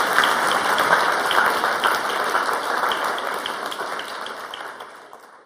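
Audience applauding at the end of a talk, loud at first and dying away gradually.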